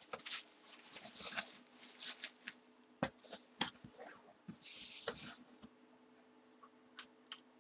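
Cardboard packaging being handled: rustling and scraping with scattered light knocks and clicks, quieter in the last couple of seconds.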